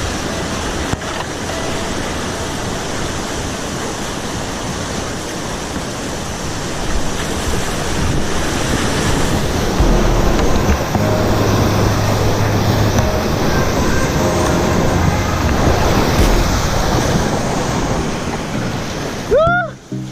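Steady rush of flowing river water, loud and unbroken. Just before the end a brief whistle-like tone sweeps up and back down.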